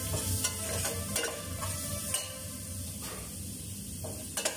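Food sizzling in a stainless steel cooking pot while a utensil stirs it, with a few sharp clicks of the utensil against the pot.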